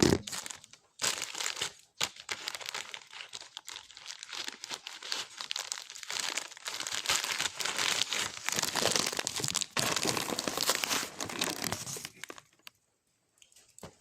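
Paper being crumpled and crinkled by hand, a dense run of crackling that stops abruptly near the end, typical of balling up paper as kindling to light charcoal.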